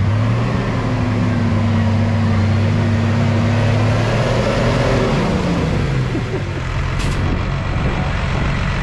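A heavy diesel engine revved up and held at high revs for about four seconds, then dropping back to a steady idle.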